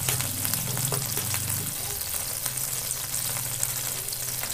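Butter sizzling and crackling as it melts in a nonstick frying pan, stirred with a spoon at first. A steady low hum runs underneath, louder for the first couple of seconds.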